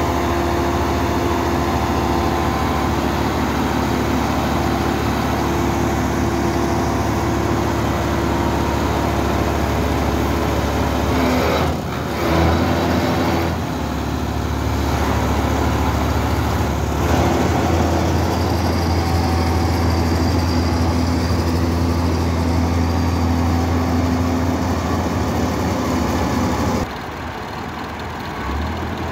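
Engine of a double-press hay baler running steadily, its note changing a few times as the load shifts. It drops in level a couple of seconds before the end.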